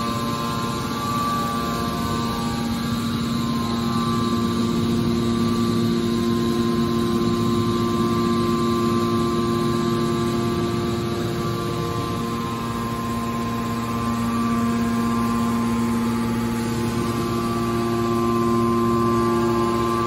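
The hydraulic power unit of a scrap-metal baler running: an electric motor driving the hydraulic pump, giving a steady hum with a few constant tones.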